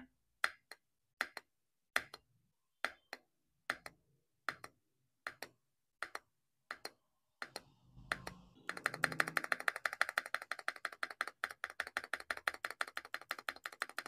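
Spacebar of a Rainy75 mechanical keyboard, fitted with a thick ABS double-shot SA-profile keycap, pressed one stroke at a time with a short tick every half-second to second. About nine seconds in, a fast, even run of keystrokes follows, several a second.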